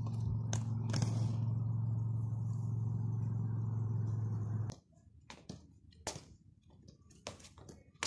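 A steady low hum with a few clicks cuts off suddenly about two-thirds of the way through. It gives way to a much quieter stretch of irregular soft taps from a footbag being kicked.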